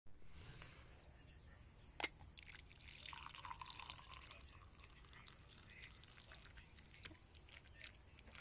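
Liquid pouring and dripping faintly, with a sharp click about two seconds in and another near the end.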